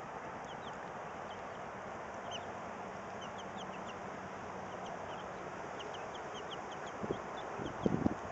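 Young chickens peeping with many short, high, falling chirps over a steady outdoor hiss. A few louder low bumps come near the end.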